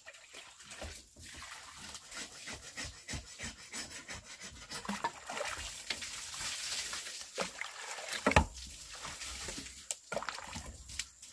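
Water poured from a plastic dipper splashing into a large plastic basin, mixed with scraping and rubbing of a knife against a hard object. A sharp knock about eight seconds in stands out as the loudest sound.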